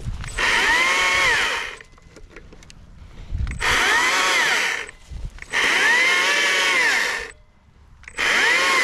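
Stihl MSA 120C battery-powered electric chainsaw run in short bursts, four times, each a whine that climbs as the chain spins up and falls away when the trigger is released, while cutting up small fallen branches.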